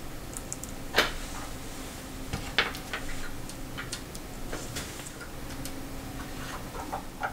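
Small clicks and taps of tools and tiny steel clock parts being handled on a workbench, coming irregularly, with the sharpest about one second in and another about two and a half seconds in.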